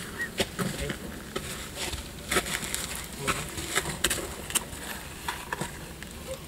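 Steps of a horse and its handler on gravelly ground: irregular crunching clicks at a walk, thinning out as the horse halts in the second half.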